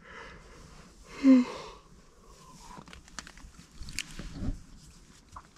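A short breathy snort from a person about a second in, followed by faint rustling and a few small clicks of movement.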